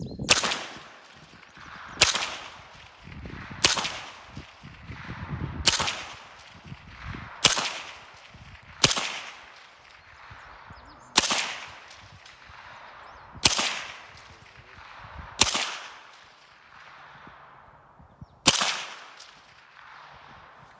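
Integrally suppressed 7.62×39 AK-47 (Aklys Defense Velociraptor, 9¼-inch barrel) fired in deliberate single shots. Ten suppressed reports come about one and a half to three seconds apart, each a sharp crack that rings off.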